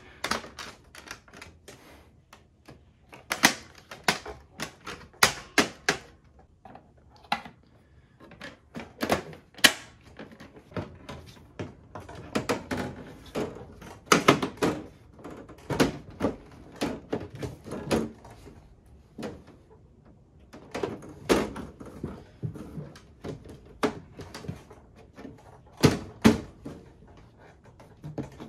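Sharp plastic clicks, snaps and knocks at irregular intervals, often several in quick succession, from the clip-on plastic front panels of a Sony VAIO VGC-RC320P desktop tower being worked off and on by hand.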